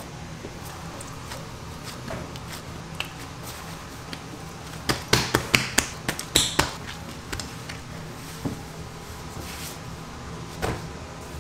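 Gloved hands punching down and folding a large mass of yeast donut dough on a wooden table. There is a quick run of sharp slaps and smacks about five to six and a half seconds in, and one more near the end, over a steady low hum.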